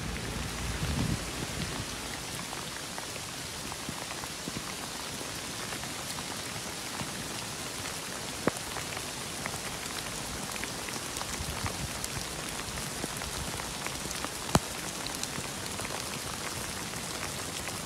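Rain falling: a steady hiss dotted with small drop ticks, with two sharper taps about eight and a half seconds and fourteen and a half seconds in.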